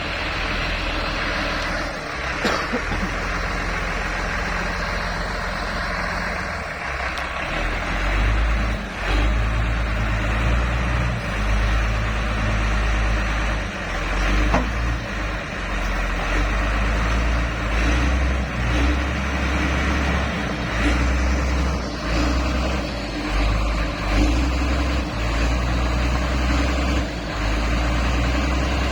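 Motor grader's diesel engine running, working harder from about eight seconds in, its note rising and falling as it strains under load to pull the machine out of soft, boggy ground.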